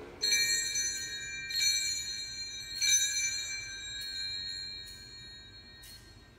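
Altar bells rung three times at the elevation of the consecrated host, each ring a cluster of high bell tones struck about a second and a half apart and slowly fading out.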